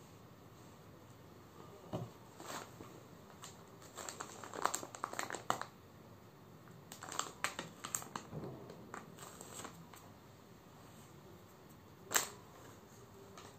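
Clear plastic packaging crinkling in irregular bursts as a folded cloth garment is pressed and handled on it, with one sharper crackle near the end.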